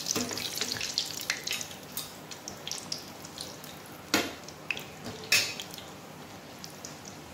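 A puri frying in hot oil in a pan, the oil sizzling with many small pops, busiest in the first two seconds. A metal spatula and spoon knock against the pan twice, about four and five seconds in; these are the loudest sounds.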